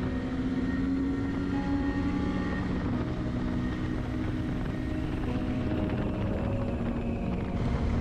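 KTM 390 Adventure's single-cylinder engine running steadily while riding, with wind rumbling on the microphone.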